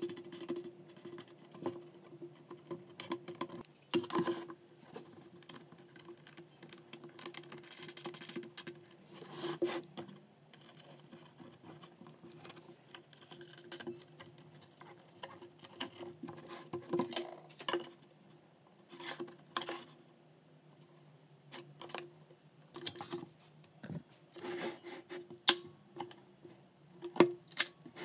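Scattered light clicks and knocks of a metal wing nut and bolt being handled and tightened, and of the wooden rip fence being moved on the plywood saw table, over a faint steady hum.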